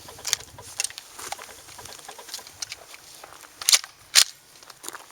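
Handling noise of light clicks and rustles, with two sharp clicks about half a second apart near the end.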